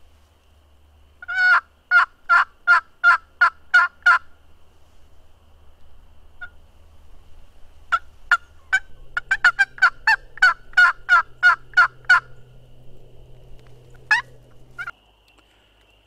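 Turkey yelping: a run of about eight evenly spaced, loud yelps, then after a pause a longer run of about a dozen at roughly three a second, and two single notes near the end.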